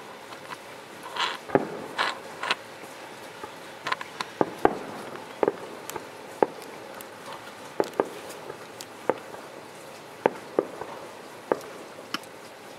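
Distant fireworks display: shells bursting in irregular bangs, about fifteen over the stretch, some trailing a short echo.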